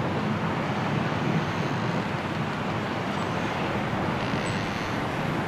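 Snowstorm wind blowing steadily through bare trees, an even rushing noise with no single gust standing out.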